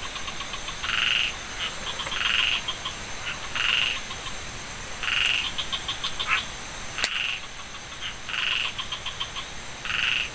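Frogs calling, a short pulsed croak repeating about every second and a half with quieter call trains in between, over a steady high-pitched tone. A single sharp click comes about seven seconds in.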